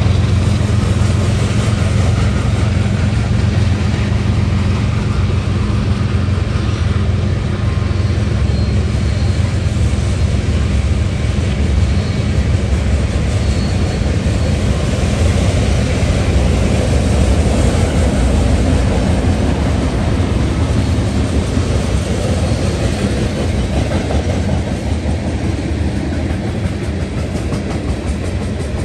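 BNSF freight train passing close by. The diesel-electric locomotives' low engine drone weakens as they pull away, under the steady rumble of the open-top coal cars rolling over the rails.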